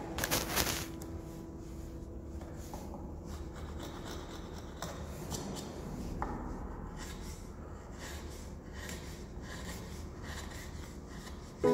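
Hand chisel paring end grain and edges of a wooden board, a series of short, irregular scraping and shaving strokes, with a louder stroke just after the start.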